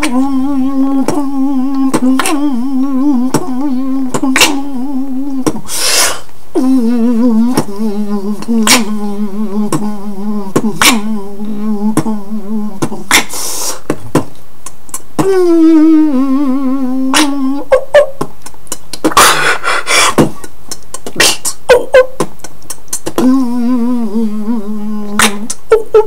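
Human beatbox: a man hums long wavering, synth-like tones that slide down in pitch while clicking out a beat with his mouth. He adds a few short hissing sweeps, imitating spacey electronic sounds.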